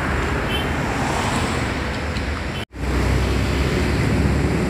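Street traffic noise of passing vehicles. It cuts off abruptly for an instant about two and a half seconds in and comes back with a louder, steady low engine note from a vehicle close by.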